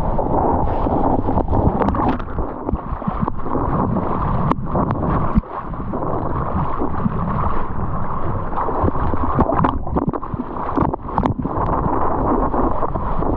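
Seawater sloshing and splashing close to the microphone as a surfer paddles a surfboard, mixed with wind noise on the microphone, and a few sharp splashes of water hitting the camera.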